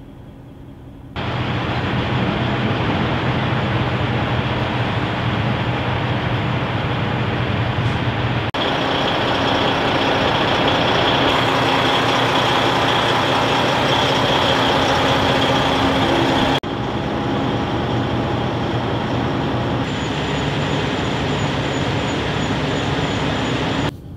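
Kenworth T680 semi truck's diesel engine running, a steady loud drone heard in a series of edited clips that cut in abruptly about a second in, then switch about a third and about two-thirds of the way through.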